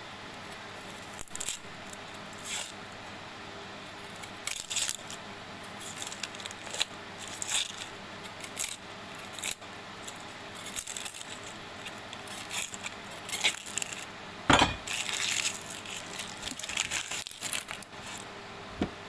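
Dry onion skin crackling and rustling as it is peeled off by hand, in irregular short crackles. A single loud knock comes about three-quarters of the way through.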